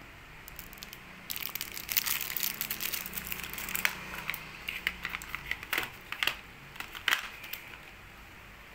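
Crinkling of a clear plastic wrapper handled in the hands, then a few sharp taps as small cardboard boxes and the wrapped case are set down on a glass tabletop.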